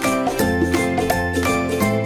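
Background music: a tune with a steady beat, about three beats a second, over a bass line.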